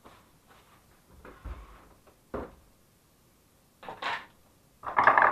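Plastic parts of a partly dismantled Saeco espresso machine handled by hand: a dull thud, a sharp click, then two rattling clatters, the last and loudest near the end.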